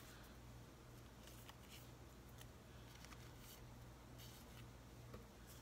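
Near silence: faint rustling and light ticks of small paper stamps being sorted by hand, over a low steady hum.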